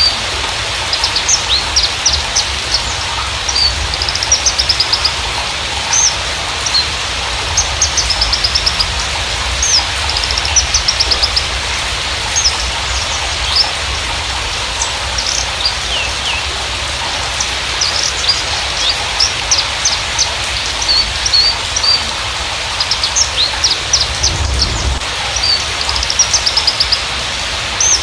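Javan bushlark (Mirafra javanica parva) singing a rapid string of high chirps and short trills, over a steady background hiss.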